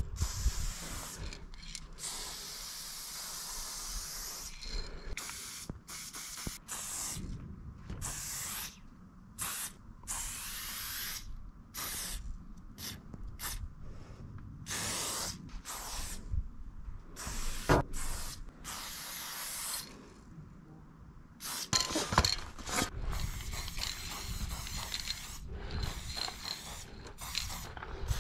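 Aerosol spray paint can spraying onto a metal freight car, a hiss that starts and stops many times in short and longer bursts. A couple of sharp clicks stand out about two thirds of the way through.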